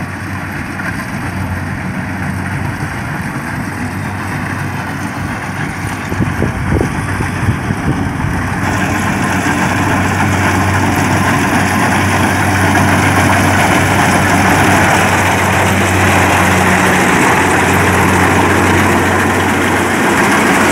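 Kubota DC-70 rice combine harvester running as it cuts and threshes, a steady diesel engine drone with mechanical clatter that grows louder as the machine comes up close. A few sharp knocks come about six to eight seconds in.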